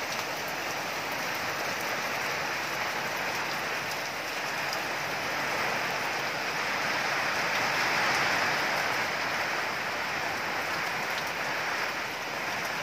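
Rain falling steadily, an even hiss of drops on leaves and surfaces that swells a little about two-thirds of the way through.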